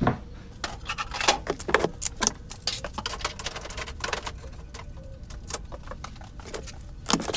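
Irregular clicks, taps and knocks of hand tools and clamps being picked up and put away on a workbench.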